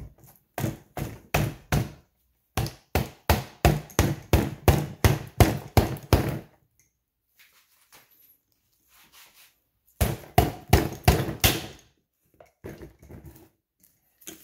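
Rubber mallet striking, in quick runs of about four blows a second, on pliers clamped to the stuck rotor of a Honda D16Y8 distributor, trying to knock it loose. Three runs of blows with a pause of a few seconds in the middle, the last few lighter.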